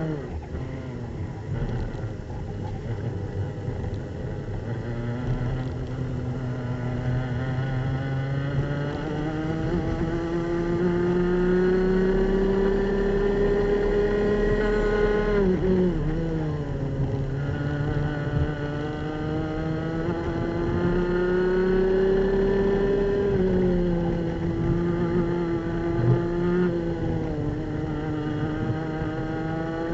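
Racing kart's two-stroke engine at high revs, heard from on board. Its pitch climbs slowly under full throttle down the straight, falls sharply about halfway through as the driver lifts for a corner, climbs again, then eases off and picks up once more near the end.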